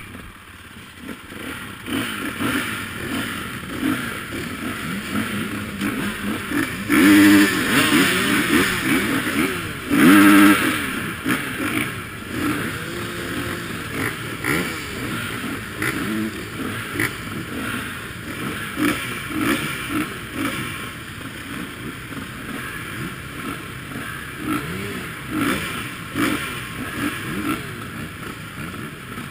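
Several enduro dirt bikes idling at a start gate, with their engines repeatedly blipped. Two loud revs rise and fall about seven and ten seconds in.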